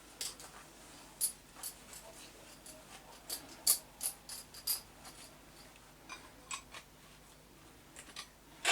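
About a dozen light, irregular metallic clinks and taps as the forged rebar hook and metal tools are handled, the loudest near the middle and at the very end.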